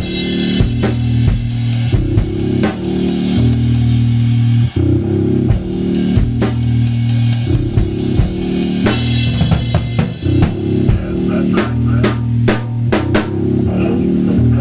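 Drum kit played in a loose improvisation over a song's backing track, with kick drum, snare and cymbals over a sustained bass line. Quick runs of strokes come through in places.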